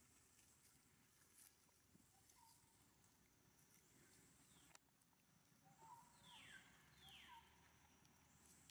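Near silence: faint outdoor ambience, with one small click near the middle and two quick falling chirps in the second half.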